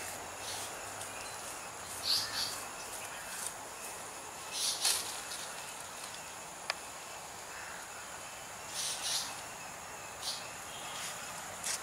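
Rural outdoor ambience: a steady high-pitched insect drone with short bird chirps every few seconds, and a single sharp click about two-thirds of the way through.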